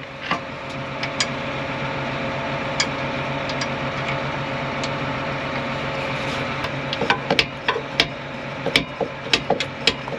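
Grease gun being worked on a hard-to-reach grease fitting of a cotton picker's fan drive pulley: a quick run of sharp metallic clicks and taps through the last few seconds, over a steady mechanical hum. The fan drive is going out, and the grease is a try to keep it going.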